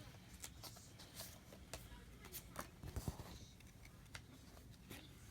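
Faint, scattered light clicks and rustles of trading cards and a plastic card sleeve being handled.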